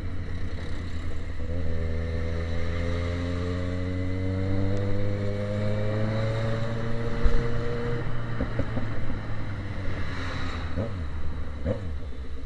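Yamaha XJ6's inline-four engine running through a straight pipe with no muffler, ridden in traffic. From about a second and a half in, its pitch climbs slowly for several seconds as it accelerates, then drops back to a steady low note.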